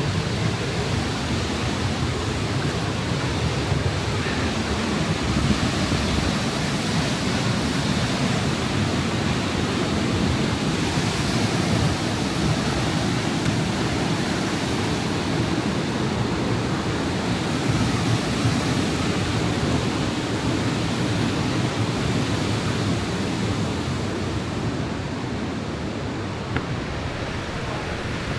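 Khamosh Waterfall's falling water: a loud, steady rush that stays even throughout.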